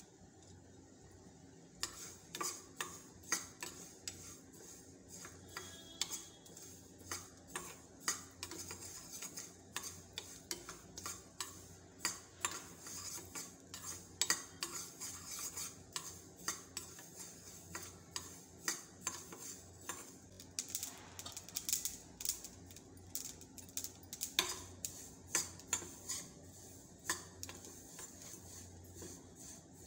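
A metal spoon stirring fenugreek, mustard and cumin seeds as they dry-roast in a small steel pan, with frequent irregular clinks and scrapes of spoon on pan starting about two seconds in.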